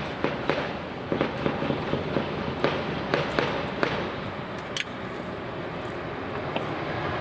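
Decorated truck's diesel engine with a split exhaust manifold, making irregular sharp pops over a low rumble. The pops fade out about four and a half seconds in, leaving a steadier engine rumble.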